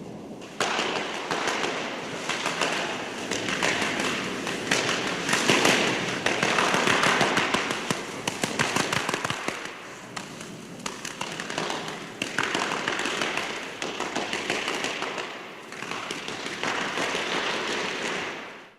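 Curling on ice, most likely brooms sweeping hard in front of a sliding stone: a long, scratchy, crackling noise that swells and fades several times and then cuts off sharply.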